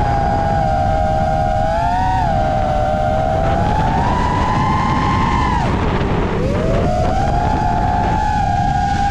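FPV mini quad's brushless motors whining, the pitch wavering up and down with throttle, dropping sharply about six seconds in and climbing back up. A steady low rush of noise runs underneath.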